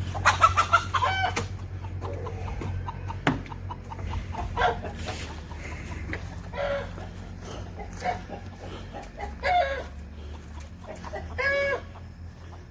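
Domestic hens calling: a burst of calls at the start, then single calls every couple of seconds, with a sharp click about three seconds in.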